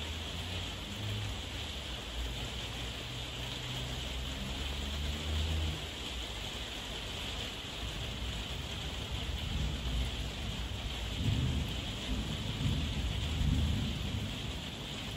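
Heavy rain falling steadily with thunder rumbling low underneath, once through the first few seconds and again, stronger, in the second half.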